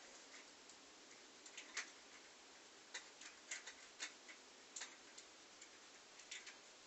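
Faint, irregular clicks and taps of small objects being handled across a quiet room, a dozen or so scattered through, a few close together about halfway.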